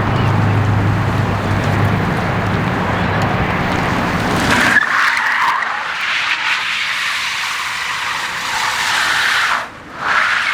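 Car tires skidding and squealing as a car slides. A low steady drone under the tire noise cuts off suddenly about halfway through.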